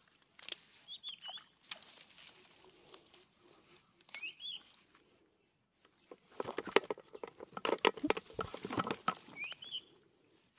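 Crackling rustle of leaves and grass being disturbed, sparse at first and densest from about six to nine and a half seconds in, with a small bird's short rising chirp three times.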